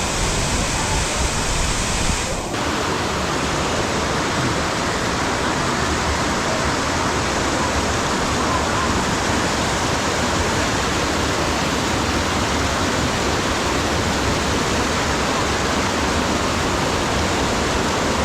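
Waterfall, a steady heavy rush of falling water, its tone shifting briefly about two and a half seconds in.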